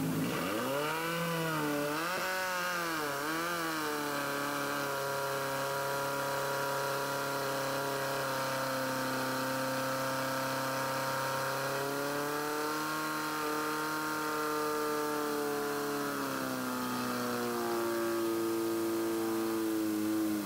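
Portable fire pump engine running hard at high revs. In the first few seconds its pitch swings up and down several times as the throttle is worked while the pump draws water. It then holds at full speed driving water through the attack hoses, with its pitch dropping and wavering again near the end.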